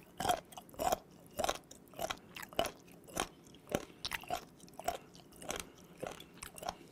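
Close-miked chewing of raw horned turban sea snail meat: firm, crunchy chews, about two a second.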